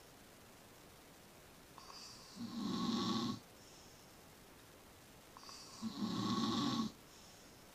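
A sleeping person snoring: two loud snores about three and a half seconds apart, each swelling up briefly and lasting about a second.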